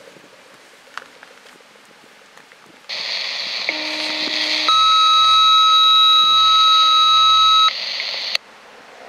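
A scanner radio opens with a hiss and sounds a two-tone page: a short low tone, then a loud, steady higher tone for about three seconds. The squelch then closes abruptly. This is the dispatch alert tone that sets off the outdoor warning sirens for the all-zone test.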